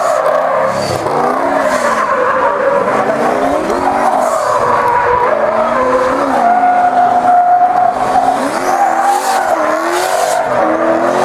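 Drift car sliding sideways, its engine revving up and down with the throttle while the rear tyres squeal and skid; about two-thirds of the way through the revs are held at one steady pitch for about a second.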